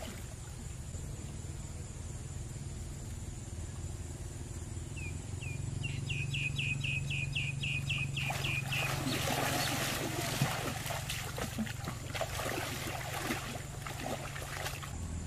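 A bird calls a quick run of about a dozen high chirps, about four a second. From about halfway through, water splashes and sloshes as people wade and grope with their hands in a river. A low steady hum runs underneath.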